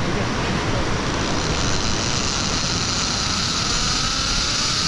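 Zip-line trolley running along its steel cable with steady wind noise; a whine rises in pitch over the last couple of seconds.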